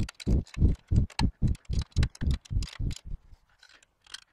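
Ratchet wrench clicking in quick, even strokes, about four a second, as bolt nuts are tightened down on a steel trailer rail. It stops a little over three seconds in, and a few faint clicks follow.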